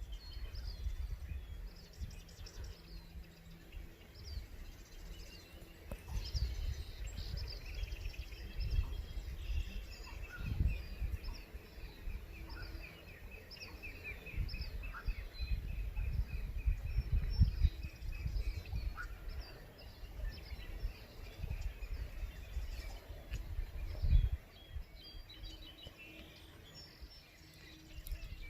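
Small birds chirping repeatedly in short high calls, with a long rapid trill running through the middle, over irregular low rumbling on the microphone.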